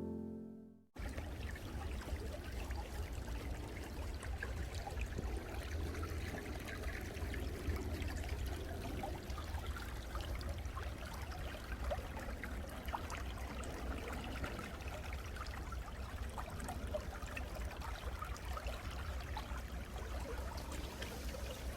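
Water trickling steadily in a small stream, an even running-water sound with a low rumble underneath.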